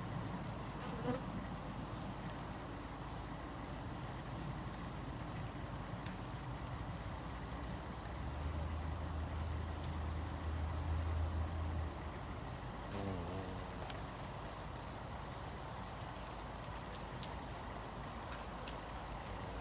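Steady high-pitched song of insects in the grass. A brief wavering buzz comes about thirteen seconds in, and a low rumble sits underneath from about eight to twelve seconds in.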